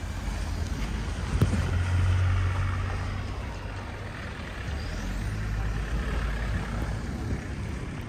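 A heavy road vehicle passing on a snowy street. Its low engine rumble swells to its loudest about two seconds in and then eases off, with a short knock about one and a half seconds in.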